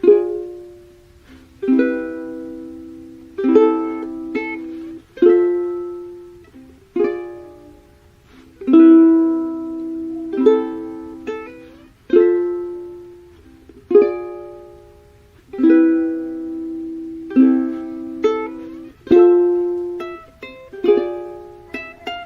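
Background music: slow plucked-string chords, such as a ukulele or guitar, each struck and left to ring out, one every second and a half to two seconds.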